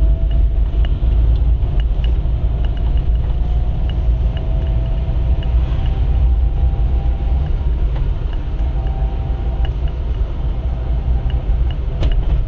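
Car driving at a steady speed: a continuous low rumble of engine and tyre noise, with a faint wavering whine above it.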